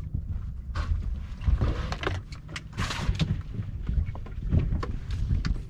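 Low rumble of wind and water around a small fishing boat on open water, with scattered knocks and two short bursts of hiss, about a second and three seconds in.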